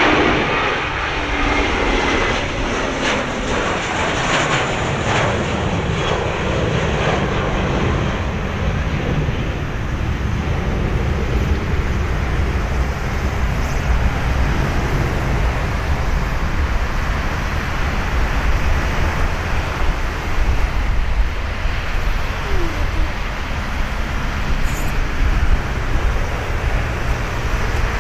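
Airbus A320-232's twin IAE V2500 turbofan engines as the jet climbs away after takeoff. A high whine and falling tones fade over the first few seconds, leaving a steady low rumble.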